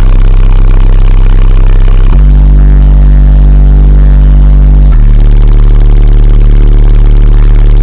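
Atomic ELE 18-inch car subwoofer playing bass music at full volume, so loud that the recording distorts. Long held bass notes step to a new pitch about every three seconds.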